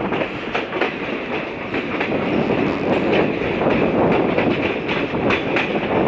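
Passenger train running round a curve, heard from an open coach doorway: a steady rush of wheels and wind with irregular clickety-clack clicks as the wheels cross rail joints.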